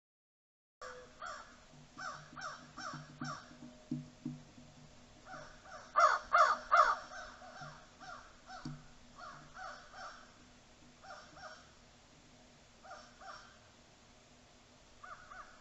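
Several crows cawing in short runs of repeated calls, with the loudest quick run of caws a little past the middle, heard through a trail camera's built-in microphone.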